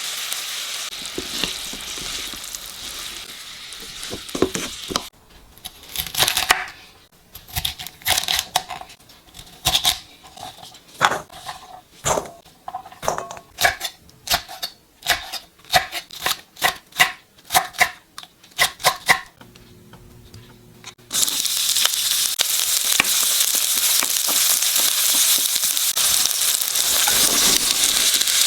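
A steady hiss, then a knife chopping on a cutting board in a run of separate strokes. About three-quarters of the way through, a frying pan starts sizzling loudly and steadily as ingredients hit the hot oil.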